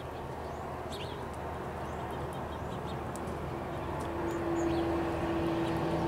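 A distant engine hum that grows gradually louder, with a steady droning tone coming in about four seconds in. Faint, short bird chirps sound now and then over it.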